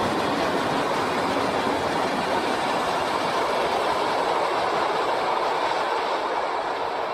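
Intermodal container freight train's wagons rolling past on the rails, a steady wheel-on-rail noise that begins to fade slightly near the end as the last wagons move away.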